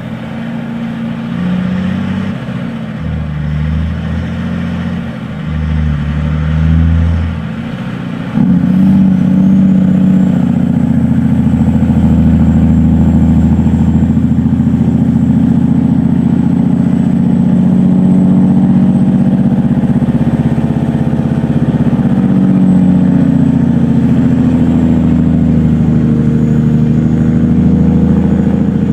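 Kenworth truck's diesel engine running, uneven for the first eight seconds, then suddenly louder and steady for the rest. A faint high whine comes in with the jump and holds.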